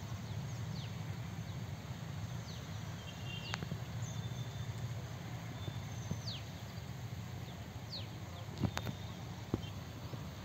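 Field ambience: birds calling in short, high, downward-sliding chirps every second or two over a steady low rumble, with two sharp clicks near the end.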